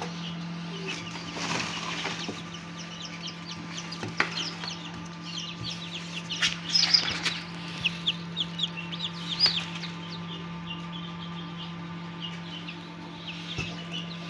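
Newly hatched chicks peeping: a dense run of short, high chirps, busiest about halfway through, over a steady low hum.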